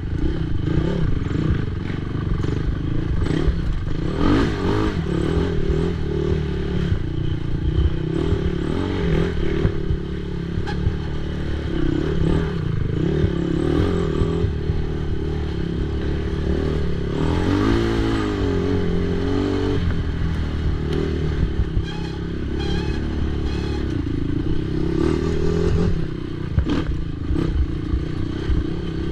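Racing ATV engine revving up and down continuously as it is ridden hard over rough ground, with clattering and rattling from the machine over the bumps.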